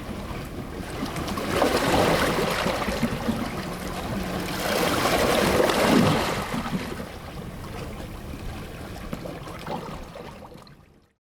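Sea waves crashing and washing over rocks, two big surges swelling and falling back, then the surf fades out to silence near the end.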